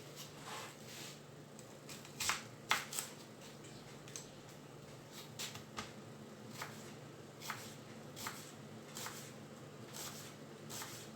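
Kitchen knife cutting vegetables on a cutting board: a dozen or so irregular crisp cuts and taps of the blade on the board, spaced about half a second to a second apart.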